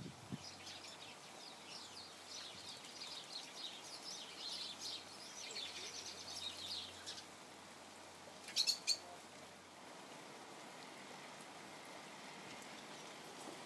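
Birds chattering: a rapid run of high chirps for about the first seven seconds, then a brief, sharp double sound about eight and a half seconds in.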